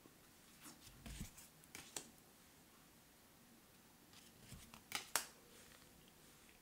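Tarot cards being slid off the front of the deck and moved to the back: two short bursts of papery sliding with light snaps, about a second in and again around five seconds in, the sharpest snap near five seconds.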